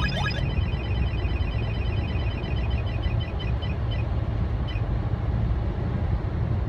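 Whistler CR93 radar detector sounding its laser alert inside a moving car: a run of rising chirps that stops just after the start, then rapid, fainter beeps that die out a bit over halfway through. Under it, the steady low rumble of the car on the road.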